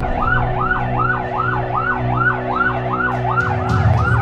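Emergency vehicle siren in fast yelp mode, its pitch sweeping up and down about two and a half times a second, over a low engine hum.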